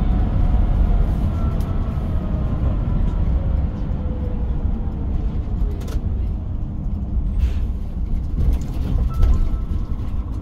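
Shuttle bus driving out of a tunnel, heard from inside the cabin: a steady low rumble of engine and tyres, with a faint whine that slowly falls in pitch over the first few seconds and a few clicks near the middle.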